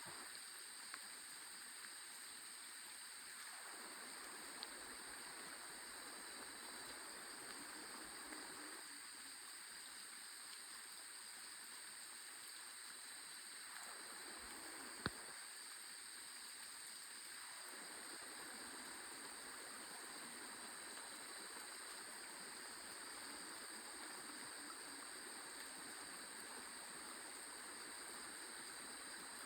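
Forest stream flowing steadily: a faint, even rush of running water. A single sharp click about halfway through, with a few smaller ticks elsewhere.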